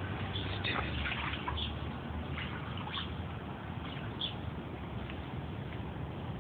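Spilled milk making small, irregularly spaced wet clicks and drips, most of them in the first half, over a low steady hum.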